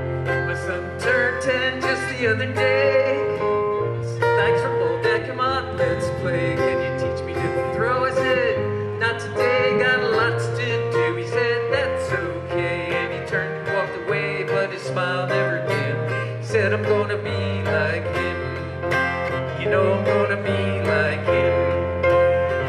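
A live band plays an instrumental break: a strummed acoustic guitar over bass notes that change every second or two, with a wavering melody line on top.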